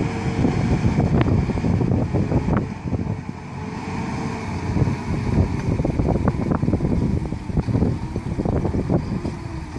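Heavy truck's engine running under a load of marble blocks, with rough wind noise on the microphone; it eases briefly about three seconds in.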